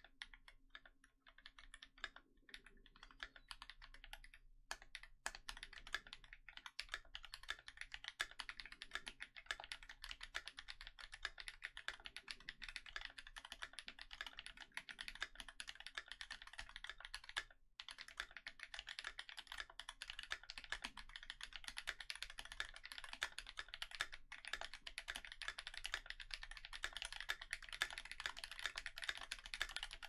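Typing on a KBD67 MKii mechanical keyboard with a brass plate, Invyr Holy Panda tactile switches lubed with Tribosys 3204, and GMK keycaps. The keystrokes come sparser for the first few seconds, then run as a fast, dense stream, with a brief pause a little past halfway.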